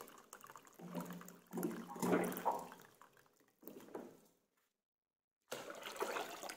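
Water running from a plastic water-dispenser spout into a plastic cup, in short spells, as the last water is drained from the dispenser; near the end the cupful is poured into a plastic bucket.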